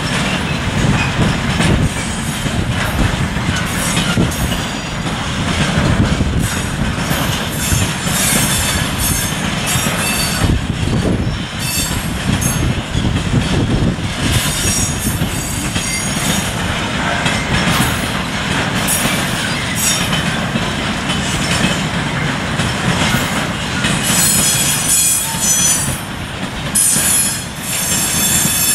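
A freight train of car-carrier wagons rolling past with a steady rumble of wheels on rail. High-pitched wheel squeal comes and goes throughout and is strongest near the end.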